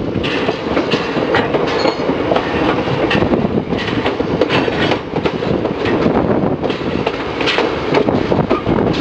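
Train wheels rolling along the rails, clattering with many short, irregular knocks, heard close from the side of a moving carriage.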